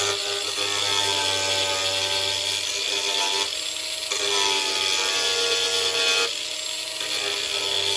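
Ryobi angle grinder running at speed, its disc grinding away a worn plastic traction lug on a MAXTRAX recovery board: a steady motor whine with grinding hiss, its pitch and level shifting a couple of times as the disc works.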